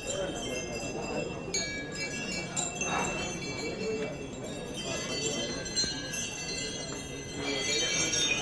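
Small metal bells, the bells hung on a line of tusker elephants, jingling and ringing over and over, with several clear high tones overlapping, over the murmur of a crowd.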